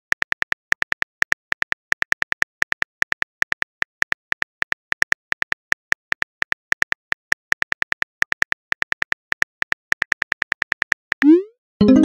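Phone keyboard key-click sounds from a texting-story app, several quick taps a second as a message is typed out. Near the end, a short rising swoosh, then a ringing chime.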